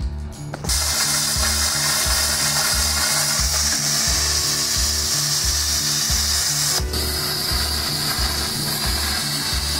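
Hand-held plasma cutter cutting steel angle: a loud, steady hiss that starts about half a second in, with a brief break about two-thirds through. Background music with a steady beat plays underneath.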